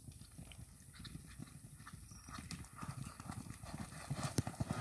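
Hoofbeats of a horse and a steer galloping on sand, a fast, uneven run of dull thuds that grows louder as they come closer. A sharp knock stands out near the end.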